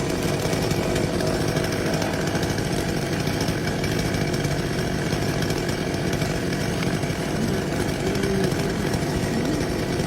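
Chainsaw running steadily under load, cutting through a large tree.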